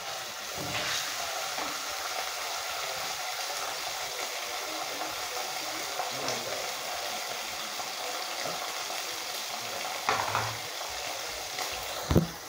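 Sausage and ketchup frying in oil in a pot on a gas stove: a steady sizzle while a spoon stirs the food. A short knock about ten seconds in and a sharper, louder knock near the end come from the phone being handled.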